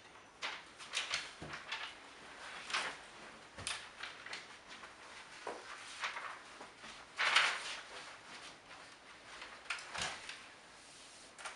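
Scattered handling and rustling noises as a barefoot child crosses a carpeted floor and takes something from a board lying on it, with a brief louder scrape a little past halfway.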